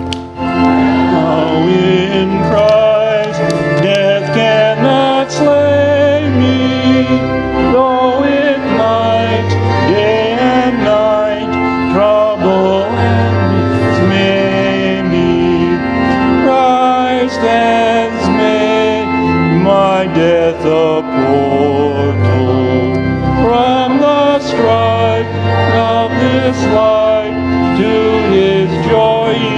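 A hymn: voices singing a slow melody over sustained instrumental accompaniment.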